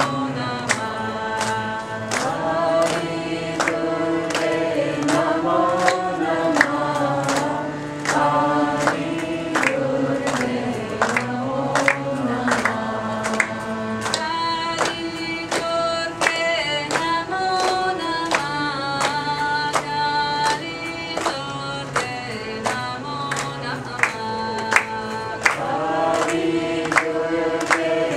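Group of voices singing a kirtan chant together, with a sharp percussive beat about twice a second.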